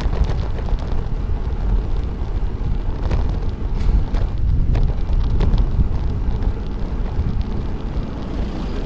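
Wind rushing over the microphone of a camera mounted on a moving road bike: a steady low rumble, with a few light ticks in the middle.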